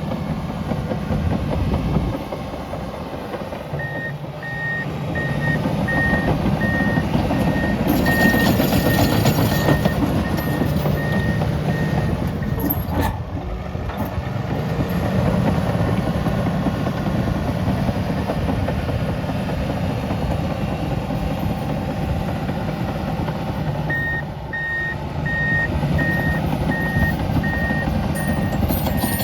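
Komatsu D65EX-18 bulldozer's diesel engine working hard as it pushes dirt. Its reverse alarm beeps steadily in two spells: from about four seconds in to about twelve, and again from about twenty-four seconds to the end, as the dozer backs up.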